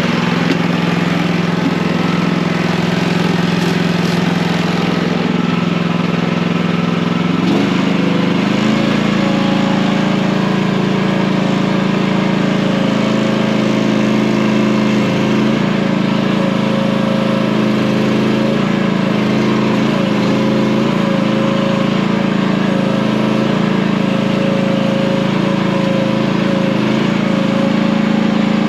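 Chinese excavator's engine running steadily. About seven seconds in, its speed steps up and holds higher, and a steady higher whine joins it.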